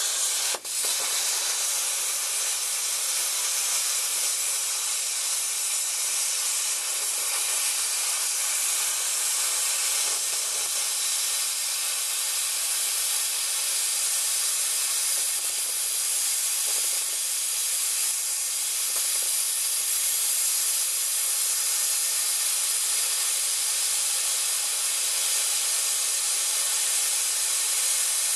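Eastwood VersaCut plasma cutter, cranked to full power, hissing steadily as its torch cuts through a thick steel I-beam. The hiss drops out for a moment about half a second in, then holds steady.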